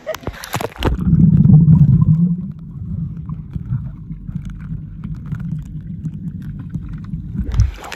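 Muffled underwater sound in a swimming pool, picked up by a submerged camera: a low rumble of moving water with everything high cut away, loudest about a second in, then steadier until it stops near the end.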